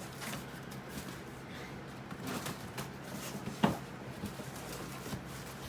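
Knife cutting the packing tape on a cardboard shipping box: scattered scrapes and rustles, with one sharp knock about three and a half seconds in.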